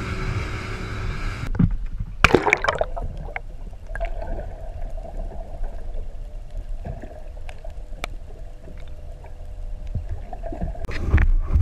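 Wind and rushing water from a moving boat's wake, then an abrupt change to muffled underwater sound. About two seconds in there is a burst of bubbling water, followed by gurgling with scattered clicks and a faint steady hum, and a louder rush of water near the end.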